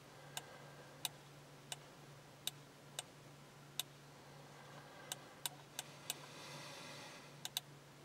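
About a dozen sharp, irregular clicks from tapping and scrolling on a Snap-on Verus diagnostic scan tool, some coming in quick pairs, over a faint steady low hum.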